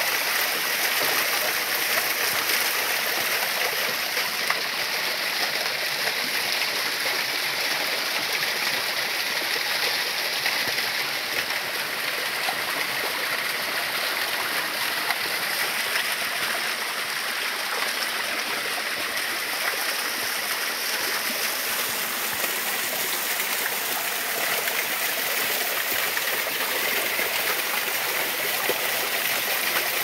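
Small waterfall splashing down a rock face: a steady, hissing rush of falling water that does not change.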